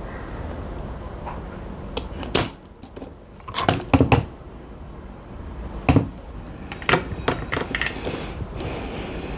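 Small hard clicks and knocks of tools and small mouse parts being handled on a workbench, in irregular clusters over a steady background noise.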